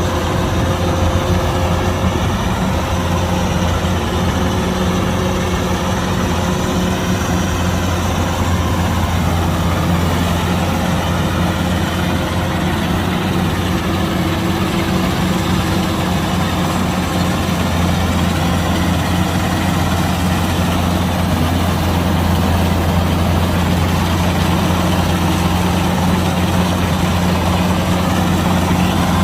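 Diesel engine of a Kubota DC-105X combine harvester running steadily with a deep, even hum.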